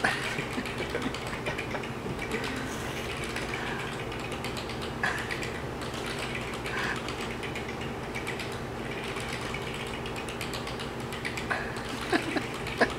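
Massage chair's massage mechanism running: a steady motor hum from the chair's rollers and gears.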